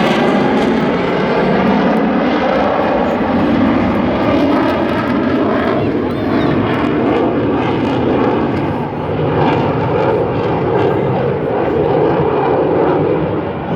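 Fighter jet's engine roaring past low overhead, then a long rushing roar that gradually loses its high, hissing edge and grows duller as the jet flies away.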